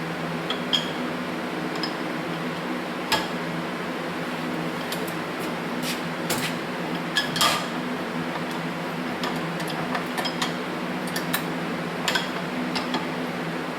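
Scattered light metallic clicks and taps of small tools and parts on a Zenith carburetor held in a vise while its float is set, over a steady fan hum.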